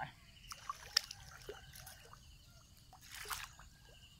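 Shallow water dripping and splashing around a person wading: scattered small drips and splashes, the sharpest about a second in, and a longer splash a little after three seconds.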